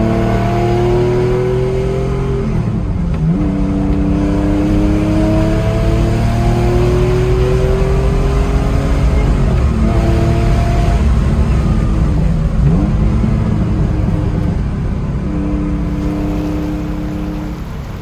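1978 Porsche 911 SC's 3.0-litre air-cooled flat-six, with 964 cams, headers and a Supertrapp exhaust, heard from inside the cabin pulling under acceleration. Its pitch climbs steadily, and it dips sharply and recovers a few times. It fades away near the end.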